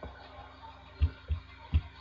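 Computer mouse clicking: three short knocks in the second half, with faint music underneath.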